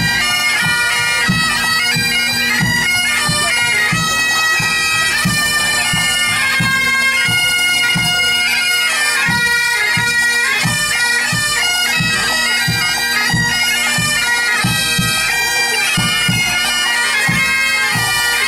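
A pipe band of Great Highland bagpipes plays a tune over the steady drones, with a drum beating in time.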